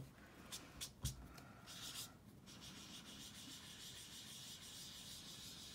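Faint rubbing of a foam ink dauber over cardstock as it is worked in small, light circles to sponge on a thin layer of ink. A few light taps come in the first second, then the soft rubbing runs on steadily.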